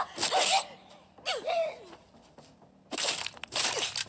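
Movie fight-scene sound: short high-pitched shouts and grunts from the fighters, then two sudden noisy hits near the end.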